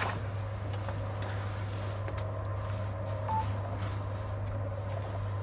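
A steady low hum with a fainter higher steady tone over it, and one short high beep a little over three seconds in.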